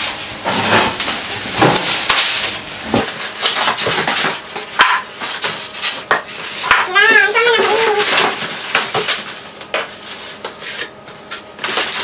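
Handling noise from unboxing a microwave oven: irregular clinks, knocks and rustling as the oven, its parts and its packing are moved about.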